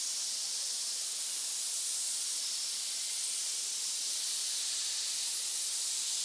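A steady, high-pitched hiss at an even level, with no breaks or pulses.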